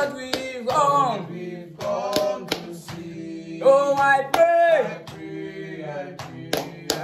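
Several men singing and chanting a worship prayer in call-and-response fashion, with a few sharp hand claps among the phrases.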